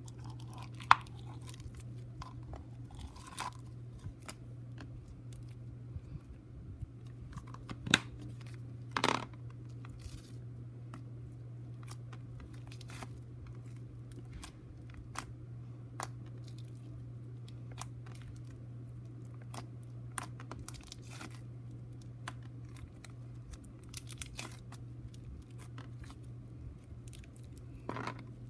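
Hands squishing and stretching a glossy purple slime packed with gems, which make it tough, giving scattered small crackles and clicks with a few louder clicks among them. A steady low hum runs underneath.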